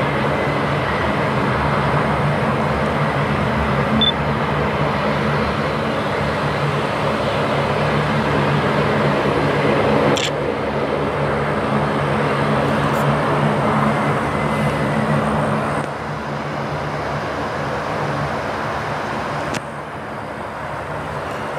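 Steady distant engine drone: a low hum under a wide rush of noise. A sharp click comes about ten seconds in, and the level steps down a little later, with another click near the end.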